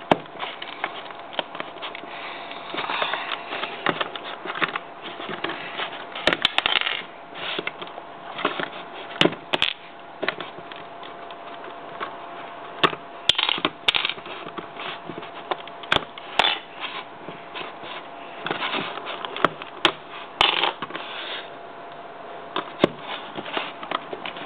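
Plastic Lego bricks clicking and rattling as they are handled and pressed together, with irregular sharp clicks among softer rustling.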